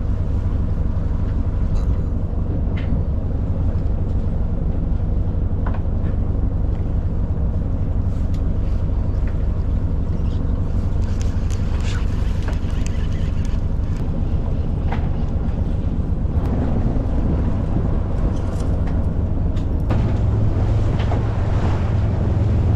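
Fishing boat's engine running with a steady low drone, with wind on the microphone.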